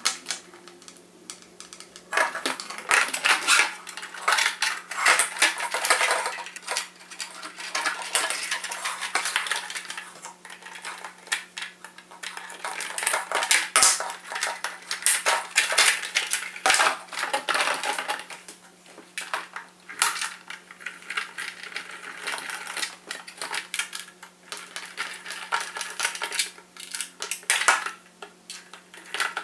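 Irregular clinking, clicking and clattering of small hard objects being handled and set down, over a faint steady low hum.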